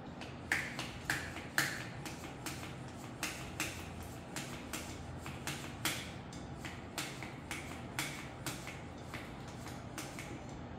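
A run of sharp, unevenly spaced clicks, about two a second, from hand work on a folding electric bike.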